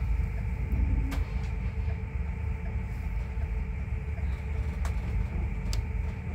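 Town shuttle bus's engine running as a steady low rumble with a faint hum, heard from inside the cabin as the bus pulls slowly away. A few faint clicks come through now and then.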